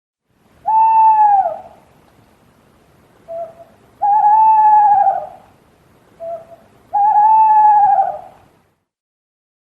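Owl hooting: three long hoots with a slight quaver, each about a second long and a few seconds apart. The second and third hoots are each preceded by a short, lower note.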